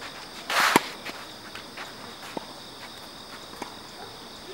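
A tennis ball struck with a racket in an overhead smash about half a second in: a brief rush of noise ending in a sharp crack. A few faint ball bounces follow, over a steady high insect buzz.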